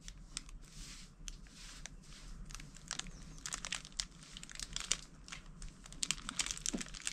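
Dry kindling crackling and crinkling in irregular snaps while a wood fire is being lit and has not yet properly caught.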